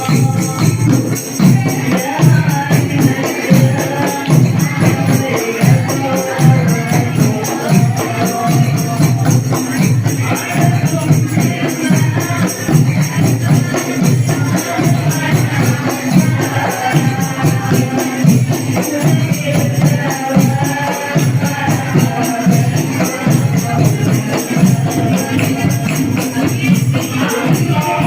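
Hadroh ensemble playing: rebana frame drums beating a fast, steady rhythm under group singing of a sholawat melody, amplified through a sound system.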